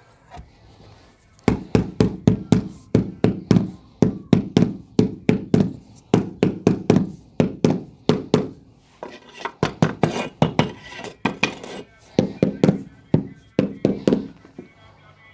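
Mallet tapping a marble floor tile down into its mortar bed to seat and level it: quick dull knocks, about three to four a second, in runs with short pauses.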